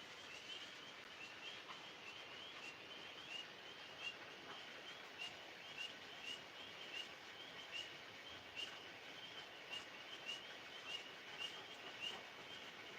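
A chorus of tree frogs calling, a steady stream of short chirps. From about four seconds in, louder single calls stand out about once or twice a second.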